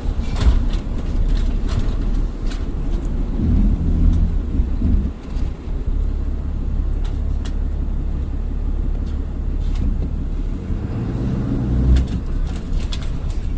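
A truck driving on the road: steady low engine and road rumble, with a few short ticks and knocks.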